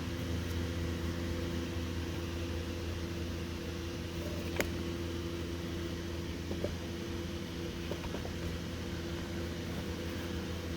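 Steady low electric motor hum, like a running fan, with a single sharp click about halfway through.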